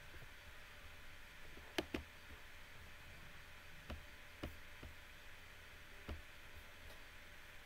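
Faint steady room hiss with a few light, sharp clicks scattered through it, the loudest a quick pair about two seconds in.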